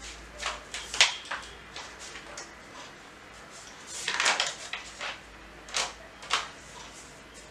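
Handling noise: several light clicks and knocks, with a longer rustle about four seconds in.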